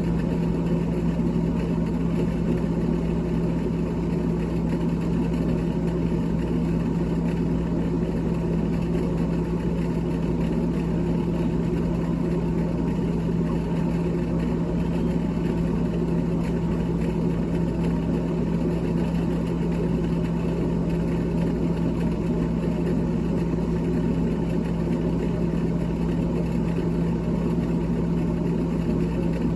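Refrigerator running with a steady motor hum and one strong low tone, unchanging throughout.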